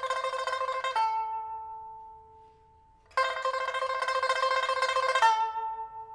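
Solo pipa, a 1980s Shanghai rosewood instrument just fitted with a new soundboard and frets, played with rapid tremolo on a held note that then rings and fades away. After a pause of about a second the tremolo starts again and ends on another ringing note that dies down near the end.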